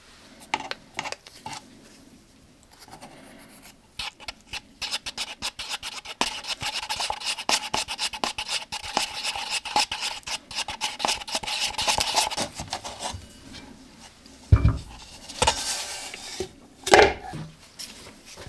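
Tape being pulled off the roll and rubbed down along the seams of an MDF mold: a run of rapid scratchy, rasping strokes with a thin ringing tone for most of the middle, then a few knocks near the end.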